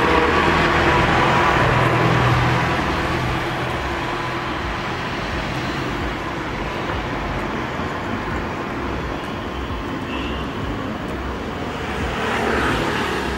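Road traffic on a city street: a steady wash of engine and tyre noise from passing vehicles. It is louder for the first two seconds or so, then settles to a steadier hum.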